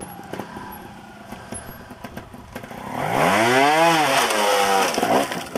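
Two-stroke trials motorcycle engine revving hard for about two seconds as the bike is hopped up a rock step, its pitch rising to a peak and then falling. Before that the engine runs quietly, with small knocks.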